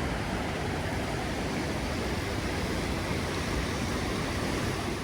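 Steady rushing noise of a fast mountain creek or cascade, unchanging throughout, with some low rumble that may be wind on the microphone.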